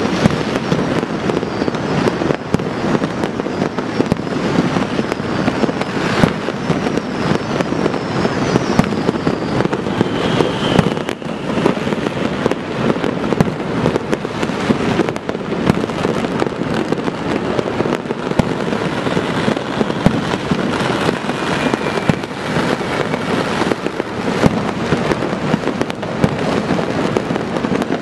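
Dense, unbroken barrage of fireworks and firecrackers going off all across a city, many bangs and crackles overlapping with no pause, with a few faint whistles falling in pitch.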